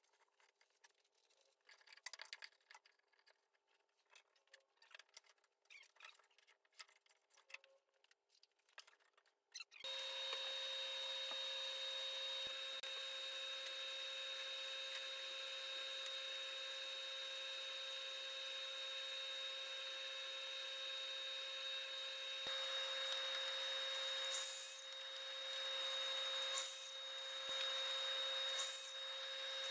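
Wooden handscrew clamps clicking and knocking as they are fitted and turned. About ten seconds in, a workshop machine starts suddenly and runs steadily with a high whine, surging louder a few times near the end.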